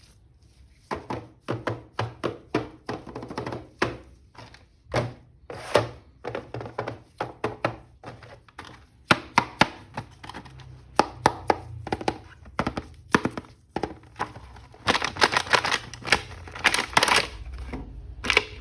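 Irregular plastic clicks, taps and knocks of an action figure being unpacked and handled, growing busier near the end.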